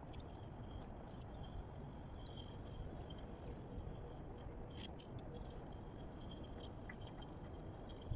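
Faint steady low rumble of outdoor background noise, with scattered small high ticks and short chirps over it.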